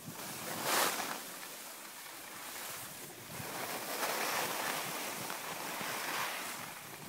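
Skis sliding and scraping over packed snow, with wind rushing across the microphone, as a steady hiss that swells about a second in and again from about four to six seconds.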